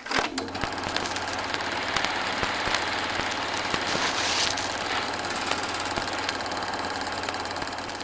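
Steady mechanical running sound with a low hum and an irregular clicking clatter, starting abruptly.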